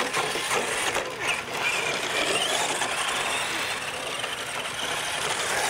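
Two radio-controlled scale trucks racing flat out on dirt: a steady whir of motors and gearing with a faint wavering whine, mixed with tyre noise and scattered clatter.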